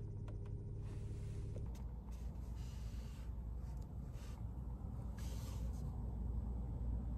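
Steady low hum inside a car that changes, under two seconds in, to the lower rumble of a car's cabin while it sits in slow traffic, with a few short, soft hisses over it.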